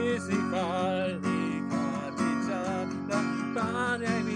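Strummed Takamine acoustic guitar with a man singing wordless gibberish over it, his voice sliding up and down in pitch.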